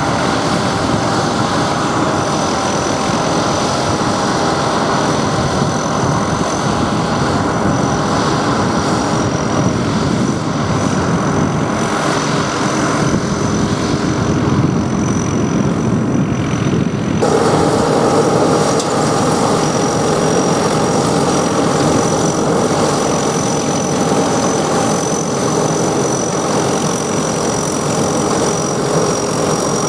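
Sakpattana SS100 mini rice combine harvester running steadily, engine and machinery together with a constant high whine. The sound shifts abruptly a little over halfway through.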